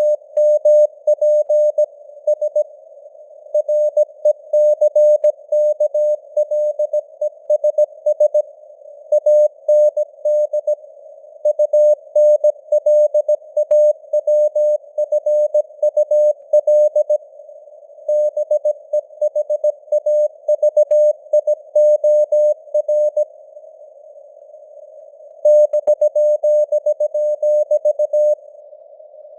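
Morse code sent at 17 words per minute as a single mid-pitched beep keyed on and off in dots and dashes, with short pauses between words and a longer pause a few seconds before the end. A hiss of simulated radio noise surrounds the tone.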